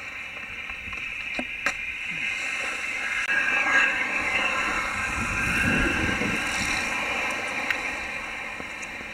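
Wakeboard carving across lake water with a rushing hiss of spray. It swells about three seconds in and eases off near the end.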